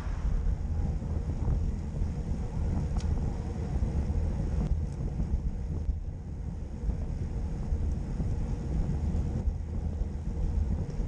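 Wind buffeting the microphone of a camera riding on a moving road bicycle: a steady, fluttering low rumble with tyre hiss, and a couple of faint clicks.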